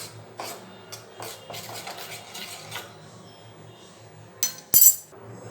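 A spoon scraping and clinking against a bowl and pan while ginger paste is scooped into melted jaggery, a run of light clinks followed by two loud sharp metal taps near the end.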